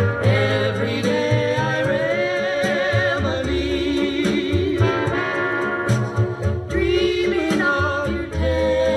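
A song with a singing voice, sung with vibrato over bass and instrumental accompaniment, played back through a hi-fi amplifier.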